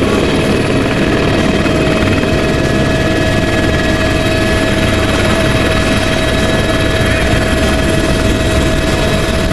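Light turbine helicopter running at flight power, heard from inside its cabin with the door open: a steady turbine whine over loud rotor and air noise as it lifts off and climbs.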